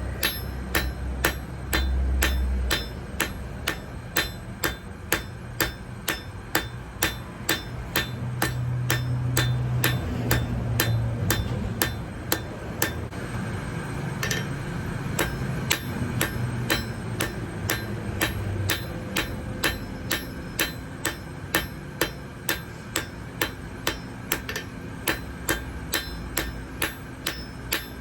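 Blacksmith's hammer striking metal on an anvil in a steady rhythm, about two blows a second.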